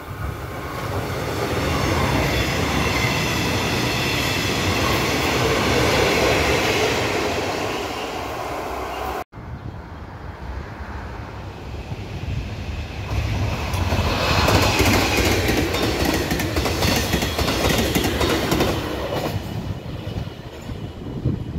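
A Taiwan Railway electric locomotive hauling an EMU500 electric multiple unit set passes with steady wheel-on-rail noise. About nine seconds in there is an abrupt cut to a second electric locomotive towing an EMU600 set, which passes with rapid clickety-clack over the rail joints, loudest in the middle.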